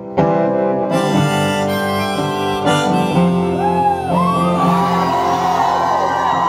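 Harmonica played in a neck rack over a strummed acoustic guitar: a live instrumental break in a folk-rock song. From about four seconds in, the harmonica notes bend and waver in pitch.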